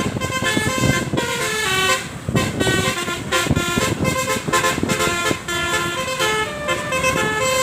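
Tour bus 'telolet' multi-tone horn playing a quick tune, its steady notes stepping from pitch to pitch several times a second, over the rumble of traffic.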